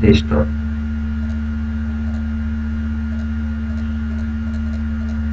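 Steady electrical hum: a constant low drone with a few thin higher tones held over it, unchanging throughout.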